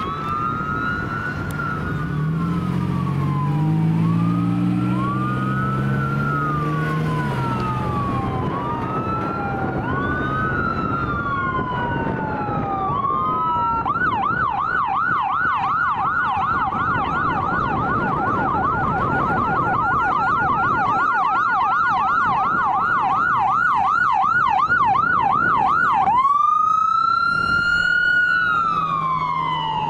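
Electronic siren of a Falck ambulance responding code 3, with a second siren's wail overlapping it. It wails slowly for the first half, switches to a fast yelp of about three cycles a second, then gives one long rising and falling wail near the end. Vehicle engine noise runs underneath.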